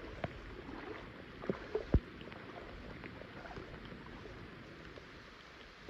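Steady rain hiss with many small scattered taps on and around a small boat. A few louder knocks come about one and a half to two seconds in.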